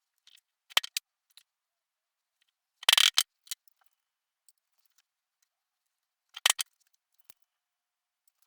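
Hand hole punch cutting holes through a self-adhesive hook-and-loop sheet for an orbital sander pad: short, sharp cutting and striking sounds about three times, the loudest a quick cluster about three seconds in, with faint handling ticks between.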